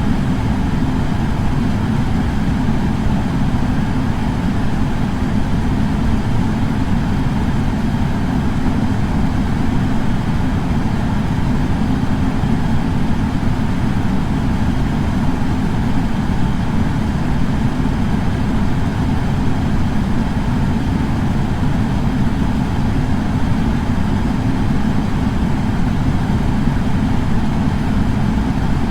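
Air purifier fan running steadily: a constant low rush of air that does not change.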